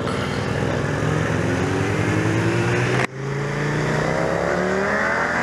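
Sport motorcycle engine accelerating, its pitch climbing steadily as it revs up, over a rush of wind noise. About three seconds in the sound breaks off for an instant and comes back with another rising rev.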